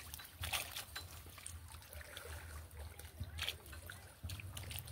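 Water dripping and splashing back into the river as a large square lift net is hauled up out of floodwater, with a few sharper splashes about half a second in and again after three seconds, over a steady low rumble.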